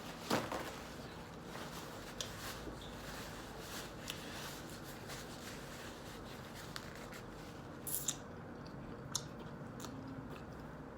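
A person biting and chewing a breakfast sandwich close to the microphone: soft mouth sounds with scattered small clicks, a sharper one just after the start and a couple more about eight and nine seconds in.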